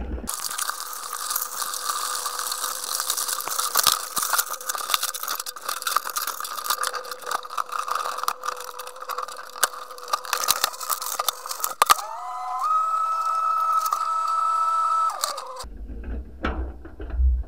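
Sounds of crabs and a crab pot being handled on a boat, played back 20 times too fast: a high-pitched, chattering run of rapid clicks and rattles over a steady high hum. About twelve seconds in, a whine rises in pitch and holds steady for a few seconds before everything cuts off abruptly.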